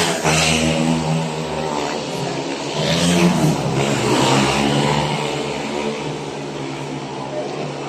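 Speedway motorcycles' 500 cc single-cylinder methanol engines racing round the track at full throttle. One bike passes close right at the start, the engines swell again about three seconds in, then run on a little more distantly.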